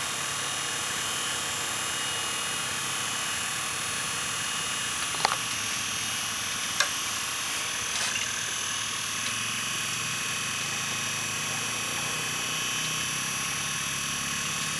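Steady mechanical hum and hiss, with two sharp clicks about five and seven seconds in.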